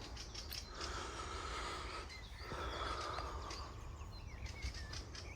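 Steady, fairly quiet outdoor background noise with a faint hum and a few light ticks.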